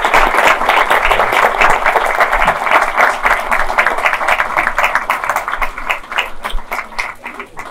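Audience applauding: dense, steady clapping from many hands that thins out and fades near the end.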